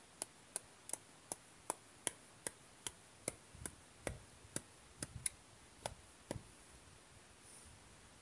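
Light, even strikes of a hand tool at work, about two and a half a second, stopping about six seconds in.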